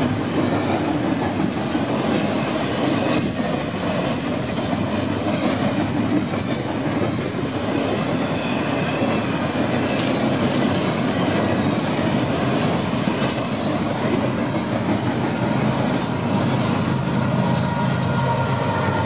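A loaded double-stack container freight train rolling steadily past at close range: a continuous rumble of steel wheels on rail with scattered clicks and brief squeals. In the last few seconds a steady engine drone from BNSF diesel locomotives coming past joins in.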